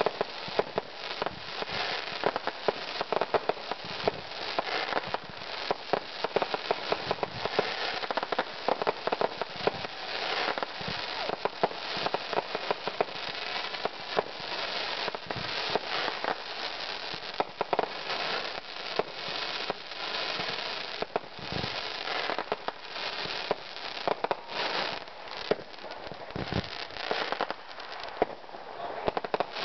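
Fireworks going off in a continuous barrage: rapid bangs of aerial bursts over unbroken crackling, with a few heavier booms in the second half.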